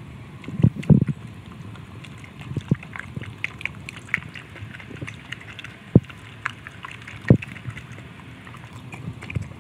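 Dog eating raw meat from a stainless steel bowl, lapping and slurping the liquid with many small wet clicks, and a few louder thumps, the loudest about six and seven seconds in.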